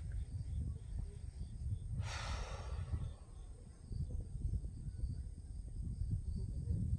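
Wind rumbling and buffeting on a phone microphone, with one short rush of noise about two seconds in.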